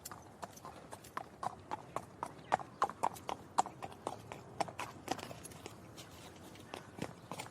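Horse hooves clip-clopping at a walk: a steady run of hoof strikes, a few each second, louder in the first half and quieter after about five seconds.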